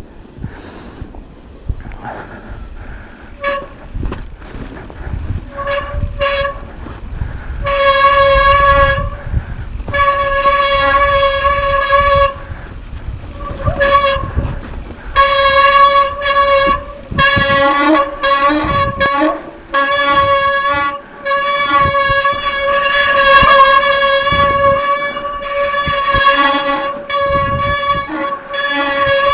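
Disc brakes of a Specialized Turbo Levo SL electric mountain bike squealing again and again as they are applied: one steady high note with overtones, from short chirps to squeals held for several seconds. A low rumble runs underneath.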